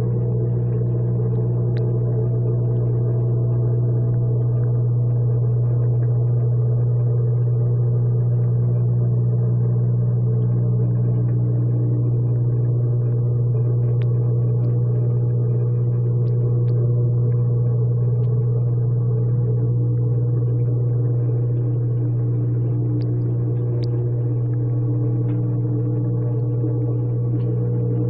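Washing machine running with a steady low hum, heard from inside the drum.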